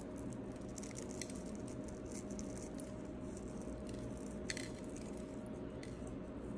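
Flaky salt sprinkled by hand onto a raw steak and ceramic plate: faint, scattered ticks of falling flakes, with one sharper click about four and a half seconds in, over a steady low hum.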